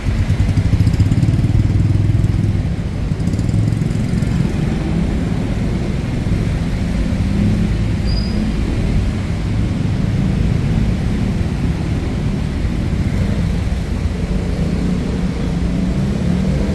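City street traffic: motor vehicle engines running close by, a steady low engine hum with slowly shifting pitch.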